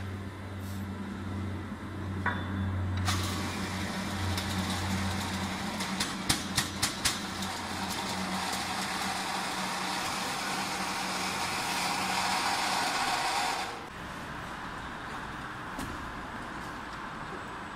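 Compact metal-strip slitting machine running with a steady motor hum. A louder rushing noise starts about three seconds in and cuts off suddenly about fourteen seconds in. A quick run of about five sharp clicks comes near the middle.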